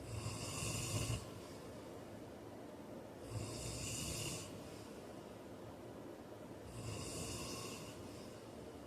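A man snoring in his sleep: three snores about three and a half seconds apart, each a low rumble with a breathy hiss.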